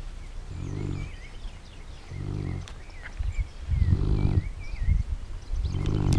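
Neapolitan Mastiff snoring in deep sleep: four slow snores, about one and a half to two seconds apart, growing louder toward the end. Small birds chirp faintly in the background.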